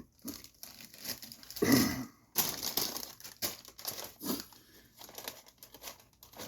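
Plastic packaging crinkling and rustling as it is handled, in irregular bursts.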